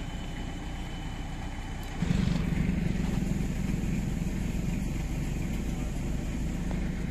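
An engine running steadily at an even speed, with a low hum; it gets louder about two seconds in and stays level.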